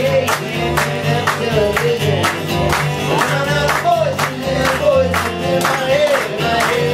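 Live acoustic band playing a song: acoustic guitar strummed in a steady rhythm under a singing voice.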